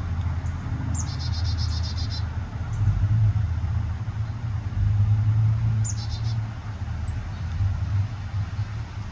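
Low rumble of a pickup truck's engine as it pulls away, swelling twice. A songbird twice gives a short falling note followed by a rapid high trill.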